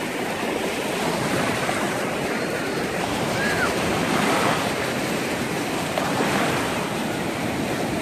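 Sea surf breaking and washing in over shallow water, a steady rushing wash.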